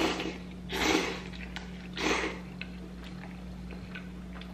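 A person slurping ramen noodles, three loud sucking slurps in the first two and a half seconds, then a few faint clicks of chewing.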